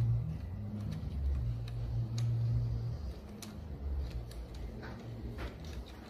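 Light, irregular metal clicks of an Allen key turning the screws of an aluminum throttle clamp on a motorized bicycle's handlebar, over a low hum.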